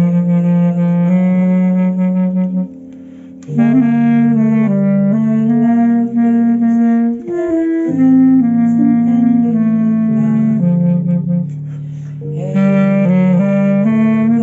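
Clarinet, played by a first-time amateur, carrying a slow melody over sustained lower accompaniment notes. The playing drops away briefly about three seconds in and softens again near the end.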